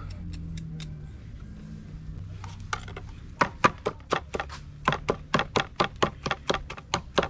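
Kitchen knife stabbing pieces of raw chicken, its point knocking through onto a wooden cutting board. A few light taps come first, then from about halfway a fast, even run of sharp knocks, about five a second.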